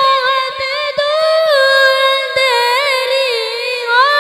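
A boy singing a naat (Urdu devotional poem) unaccompanied into a microphone, drawing out long held notes that wind through ornamented turns.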